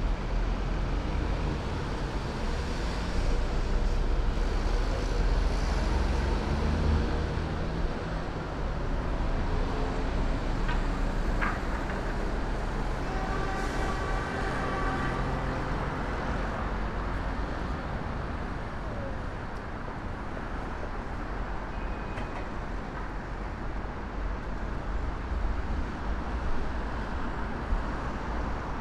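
Road traffic on a busy city street: a steady rumble of passing cars and buses, with a brief whine about halfway through.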